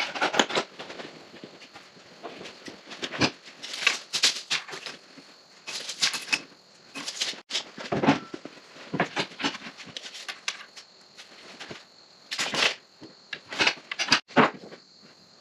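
Irregular knocks, clicks and clatter of wood and tools being handled, with no power tool running.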